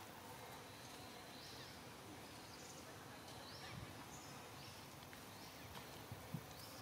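Quiet outdoor ambience: a faint steady hiss with short, high rising chirps every second or so.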